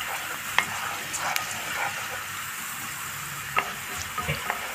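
Chopped onion and tender artichoke stems sizzling in hot oil in a frying pan, with a steady hiss, while a wooden spoon stirs them, giving a few light knocks and scrapes against the pan.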